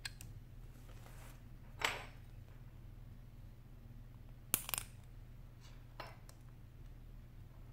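Small clicks and taps of steel tweezers and metal-backed iPhone 7 display assemblies being handled on a work mat, with a short scrape about two seconds in and a quick run of sharper clicks a little past halfway. A low steady hum runs underneath.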